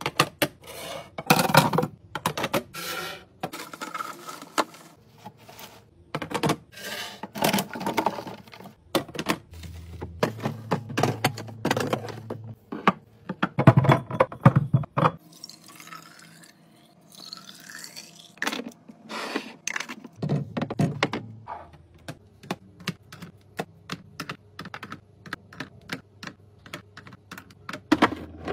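Many sharp clicks, taps and knocks in quick, irregular runs as containers, bottles and cans are set down and arranged on fridge shelves. About halfway through, a few seconds of softer continuous sound replace the knocking.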